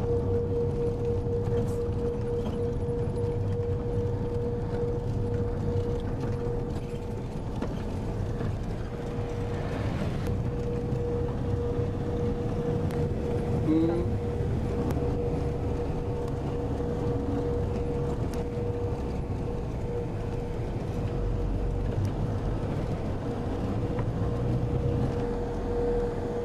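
Steady engine and road rumble of a moving vehicle, heard from inside, with a constant whine held on one pitch above the drone.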